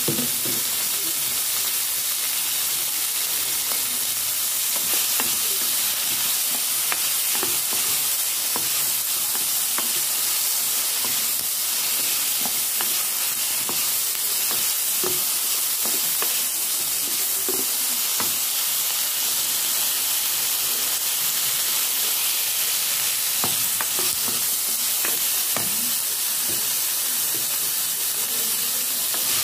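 Meat, tomatoes and onions sizzling steadily as they sauté in a hot pot, with occasional short knocks and scrapes from a wooden spoon stirring them.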